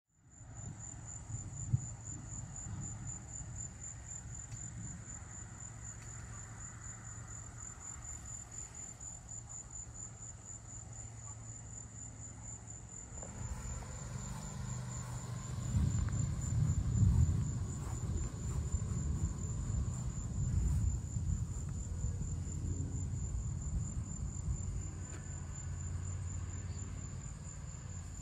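Insects chirping in a fast, even, high-pitched pulse that never lets up. About halfway in, a low rumble of distant thunder builds up beneath it, loudest a few seconds later.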